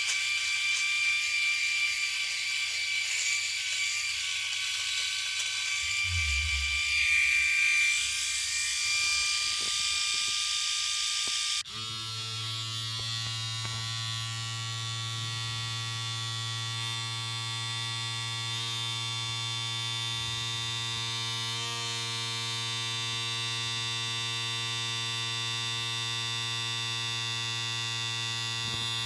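Electric shaver buzzing: a higher-pitched, slightly wavering whine, which about twelve seconds in cuts abruptly to a different, deeper and very steady buzz.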